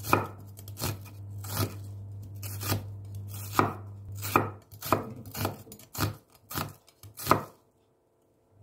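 Chef's knife slicing through a red onion onto a wooden cutting board, about eleven separate knocks of the blade at an unhurried, uneven pace, stopping shortly before the end.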